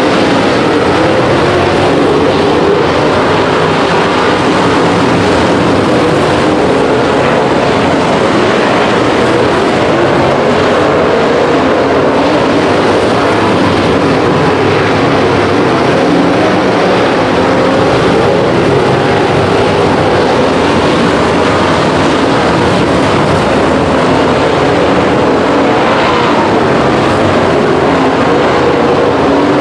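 Dirt-track race car engines running loudly and steadily through the feature race, their pitch wavering up and down as the cars lap the oval.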